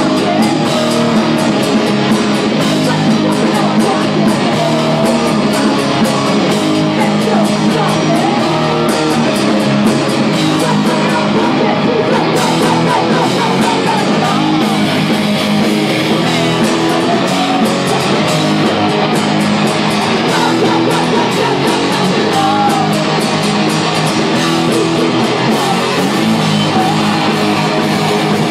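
Rock band playing live and loud, with electric guitar to the fore.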